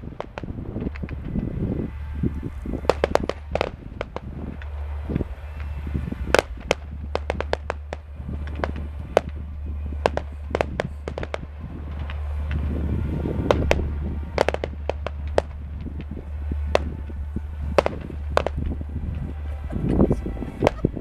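Fireworks display: a rapid, irregular run of sharp cracks and bangs from bursting shells, with deeper booms swelling up now and then.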